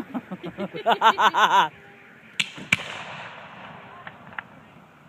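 A car alarm sounding a fast warbling siren, its pitch sweeping up and down several times a second for about the first second and a half. About a second later come two sharp firework bangs in quick succession, then faint crackling.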